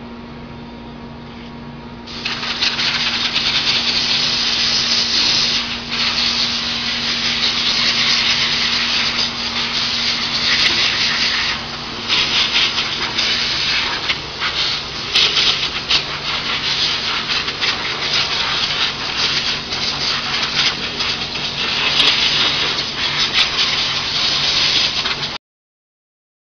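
A steady low machine hum, then about two seconds in a loud, uneven hissing noise starts, like rushing air or an abrasive rubbing. It stops abruptly shortly before the end.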